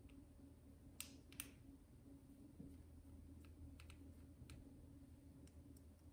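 Near silence with a few faint clicks and ticks of small plastic and metal parts being handled, two sharper ones about a second in, over a low steady room hum.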